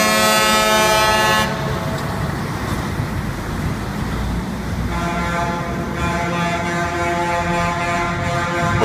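Semi-truck horns sounding in long held blasts as the trucks drive by. The horns stop about a second and a half in, leaving the rumble of the passing trucks' engines and tyres, then sound again about five seconds in and hold to the end.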